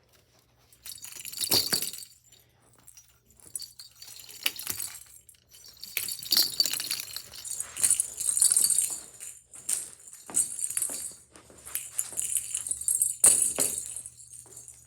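Small metal pieces jingling and rattling in irregular bursts, several seconds long with short gaps, the loudest burst near the end.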